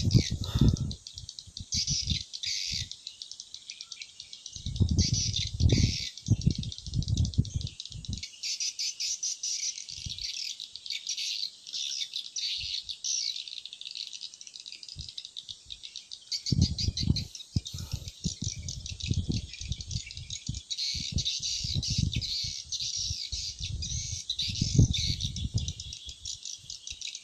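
A dense, unbroken chorus of chirping birds and rapidly trilling insects. Low rumbling bursts cut in about four seconds in and again from about sixteen seconds in until near the end, louder than the chorus.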